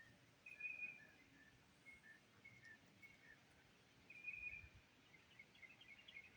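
Faint birdsong: a short, high trilled call about half a second in and again about four seconds in, with softer single chirps between.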